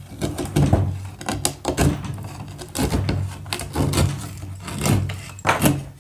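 Manual slate cutter shearing a roofing slate, its blade crunching through the stone in a run of repeated strokes, one every half second to second, over a steady low hum.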